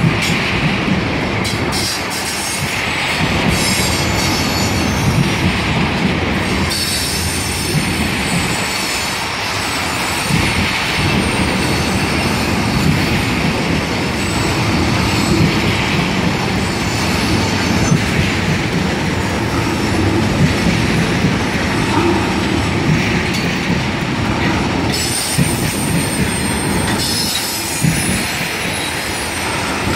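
Canadian Pacific freight train of tank cars rolling steadily past: wheels on rail clattering over the joints, with wheel squeal swelling and fading.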